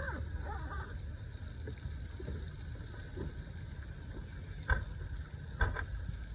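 Steady low wind rumble on the microphone, then two sharp knocks about a second apart near the end as the camper trailer's side door is swung shut and latched.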